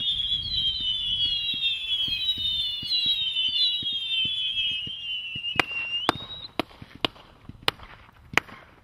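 Master of the Universe firework cake going off: several high whistles sounding at once, each falling slowly in pitch, over a low crackle. The whistles die out about six seconds in, and a few single sharp bangs follow, less than a second apart.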